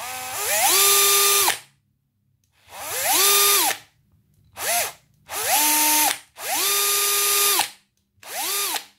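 Bosch PSR 1800 LI-2 18V cordless drill driver spun free in six short runs on its variable-speed trigger: each time the motor and gearbox whine rises in pitch as the trigger is squeezed, holds, and falls away on release. One run holds at a lower speed and one is only a brief blip, showing the speed following how far the trigger is pressed.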